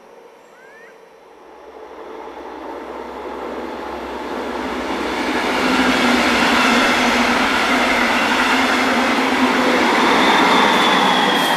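Electric-hauled double-deck regional train passing close: wheel and rail noise swells over the first few seconds to a steady loud rush with a low hum. A thin high wheel squeal comes in near the end.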